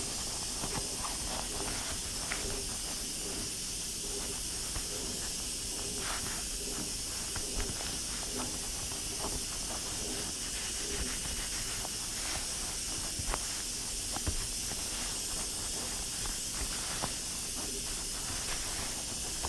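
Pressure cooker venting steam in a steady hiss, with faint scattered clicks and rustles of mittened hands working a citrus peeler into an orange's peel.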